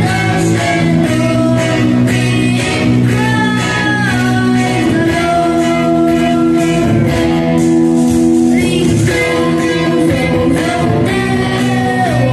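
Live song with singing over instrumental accompaniment, loud and steady, with long held notes.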